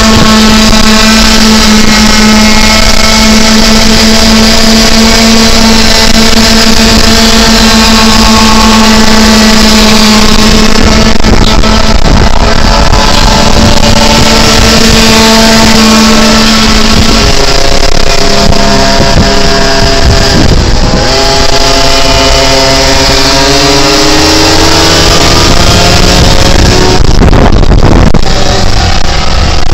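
Small two-stroke engines of motorised boards buzzing at high revs. The note holds steady for about the first two-thirds, then shifts pitch, with rising glides as the engines speed up near the end.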